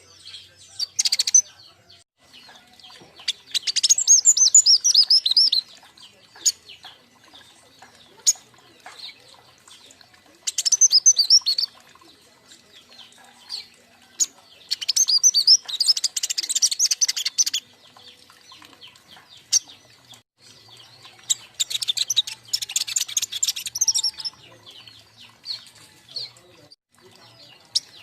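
Juvenile king konin birds chirping in a group: bursts of rapid, high twittering a second or two long, coming about every five seconds with short pauses between.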